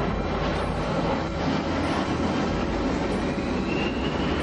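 Airbus A320 airliner's jet engines running during a low, slow pass, a loud steady rush with a faint rising whine in the last second and a half.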